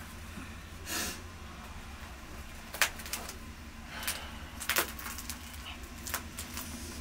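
Soft rustles and a few sharp clicks as hands tear and handle large dry flatbreads (naan) during a meal, over a low steady hum.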